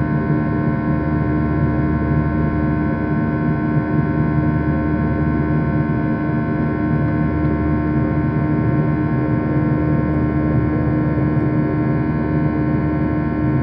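Boeing 737-800 cabin noise in the climb, heard inside the cabin: the steady drone of its CFM56-7B turbofan engines and the rushing airflow, with several steady hum tones held over it.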